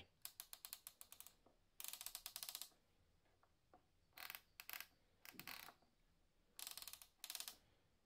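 Adjustable dials on a Funky Appliance Company four-slice toaster being turned, giving faint runs of quick ratcheting detent clicks in several short bursts.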